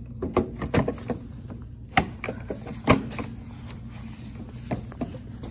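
Plastic turn-signal lamp housing being lined up and pressed into its clips on the front of a van, giving a series of sharp plastic clicks and knocks, the loudest about three seconds in.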